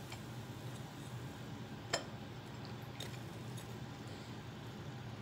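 Two light clinks of kitchenware, a sharp one about two seconds in and a fainter one about a second later, over a steady low hum.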